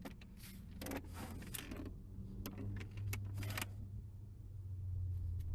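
Small metal clicks and rattles of steering-column and ignition-lock parts being handled, over a low steady hum.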